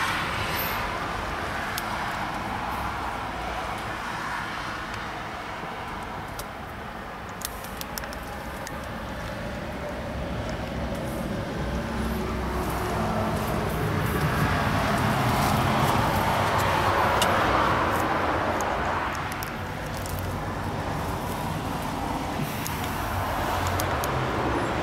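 Steady background vehicle and traffic noise with a low rumble, swelling for a few seconds about two-thirds of the way through, with a few faint clicks.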